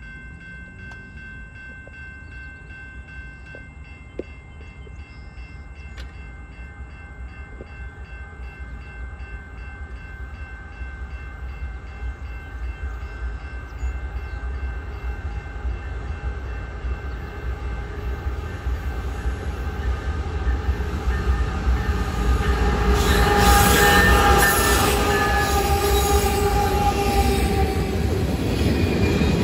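Level-crossing bell ringing steadily while a diesel-hauled freight train approaches and grows louder. The locomotive's horn sounds for several seconds as it reaches the crossing, loudest about 24 seconds in. Freight cars then roll past with wheel noise and some squealing.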